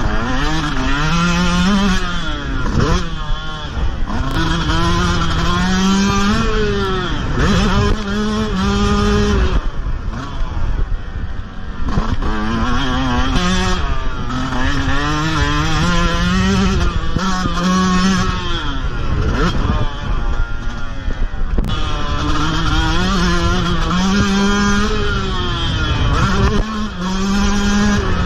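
Yamaha motocross bike's engine at racing throttle, pitch climbing in steps as it revs up through the gears, then dropping away when the throttle is chopped for corners, several times over.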